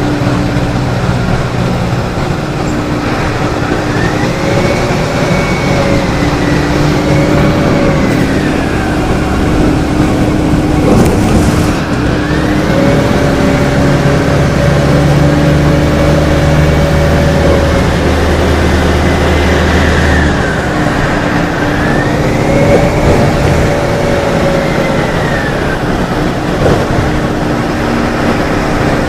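Mercedes-Benz OF-1417 bus's OM-904LA four-cylinder turbodiesel running, with a whine that rises, holds and falls about four times as the engine pulls and lets off. A short hiss about eleven seconds in.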